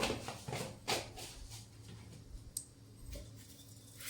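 Mustard seeds in hot cooking oil in a pan, giving scattered sharp crackles and pops at irregular intervals as they begin to splutter.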